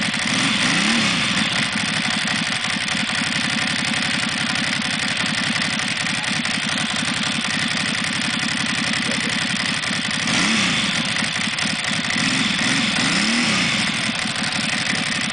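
Ducati Monster S2R 1000's air-cooled L-twin idling with a steady loping pulse through cored stock mufflers on the stock midpipe. The throttle is blipped briefly about a second in, then three more times near the end.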